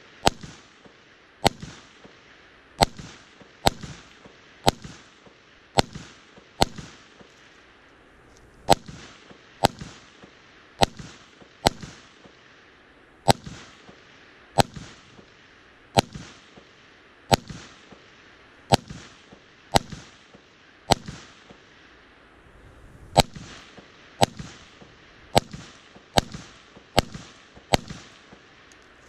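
Steady aimed semi-automatic fire from an LMT AR-15 rifle: about twenty-five sharp shots at roughly one a second, each with a short echo, broken by two brief pauses.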